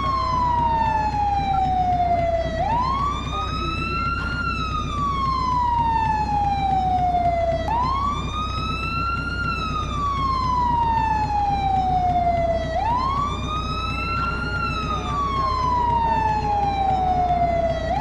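American fire truck siren sounding the wail: each cycle climbs quickly in pitch, then falls slowly for about four seconds, repeating about every five seconds. A steady low rumble runs underneath.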